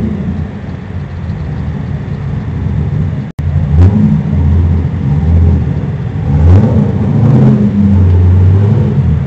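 A car engine running, its revs rising and falling, with a brief break in the sound about a third of the way through.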